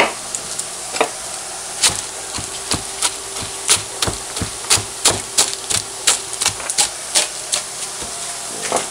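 Kitchen knife chopping on a cutting board: sharp knocks, sparse at first, then about three a second.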